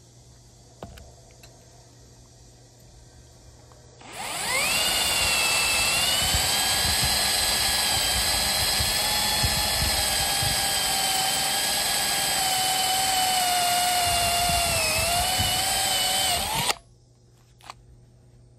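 Milwaukee cordless drill with a metal-cutting twist bit drilling the head off a rivet in a steel door-hinge plate. The motor whines up about four seconds in, runs steadily for about twelve seconds with its pitch dipping briefly near the end, then stops abruptly.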